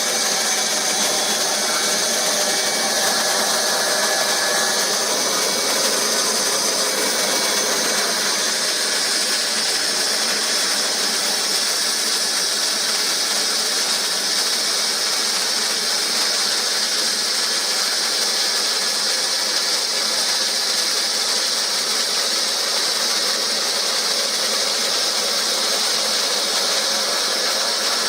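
Hot-air plastic welding gun running steadily while welding plastic seams: an even, airy blower hiss with a high-pitched edge that does not change.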